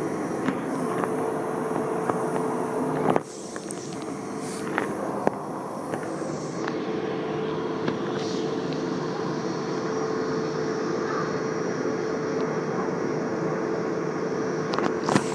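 Electric multiple-unit train running at a station with a steady hum and a held mid-pitched tone, and a few sharp clicks. The sound cuts off abruptly about three seconds in, then the hum resumes.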